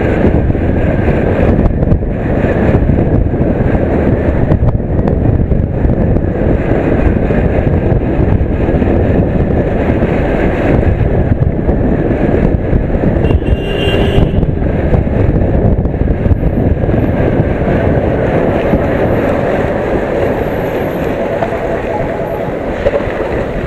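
Steady rush of riding wind on the microphone over the running of an Aprilia SXR 160 scooter's single-cylinder engine, cruising along a rough, dusty road.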